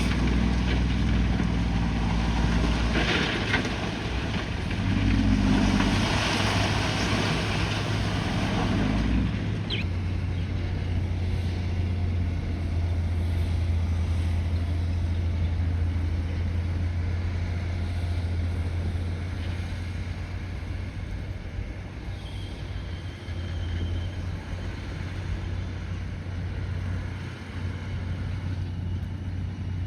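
Bulldozer's diesel engine running, its note shifting a few times in the first ten seconds as the load changes, then a steady low drone.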